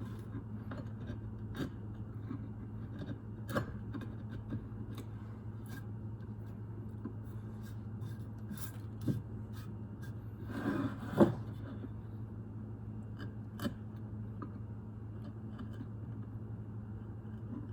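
Scattered small clicks and scraping from hand work, over a steady low electrical hum. About ten seconds in comes a brief burst of scraping that ends in a sharp knock, the loudest sound here.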